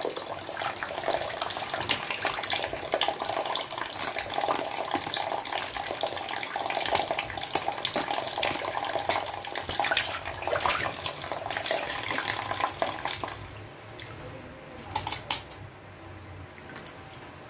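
Tap water running steadily over fish being cleaned at a sink, with small handling clicks. The water stops about 13 seconds in, followed by a few sharp snips of kitchen scissors cutting the tilapia.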